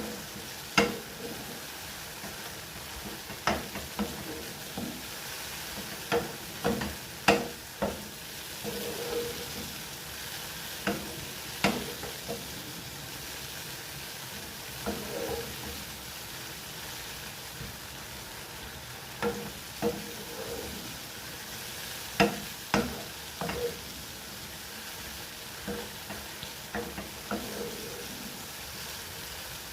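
Mushrooms sizzling in oil in a frying pan, a steady hiss, with a utensil knocking and scraping against the pan in short clusters every few seconds as they are stirred.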